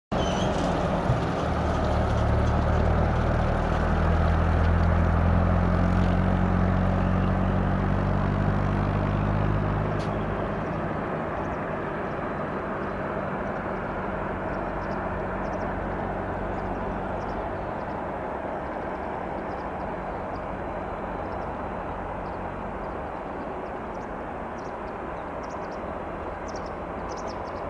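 Boeing 737-800's CFM56 turbofan engines running as the airliner rolls along the runway. A steady low engine hum is loudest for the first ten seconds, then drops away, leaving a broad rushing noise that slowly gets quieter.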